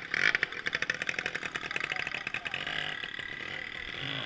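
Small two-stroke moped engines running close by with a rapid, even putter, their pitch rising and falling as they are revved.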